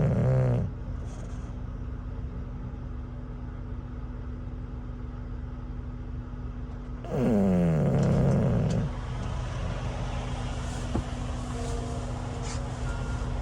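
English bulldog snoring in its sleep: one snore trailing off at the start and another long snore about seven seconds in, each sliding down in pitch and then holding. A steady low engine hum runs underneath.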